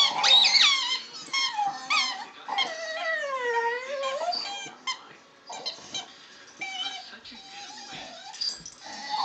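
Soft-coated wheaten terrier making a run of high, sliding whines and yowls. About two and a half seconds in comes one longer call that swoops down and back up. These are the odd play noises the dog makes with his toys.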